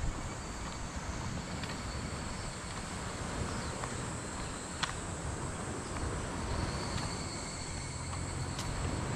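Insects chirping steadily with a high, thin tone, over a low rumble and a few faint clicks.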